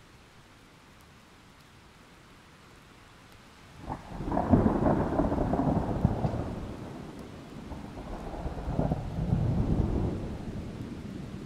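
Thunder over a low steady hiss. About four seconds in, a sharp crack breaks into a long rolling rumble, which eases, swells a second time near the end and then dies away.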